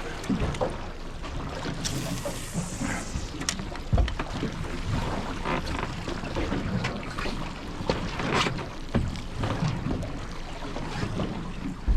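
Small fishing boat sitting on the water: water sloshing against the hull and wind on the microphone, with scattered light knocks and clunks on the boat and a brief hiss about two seconds in.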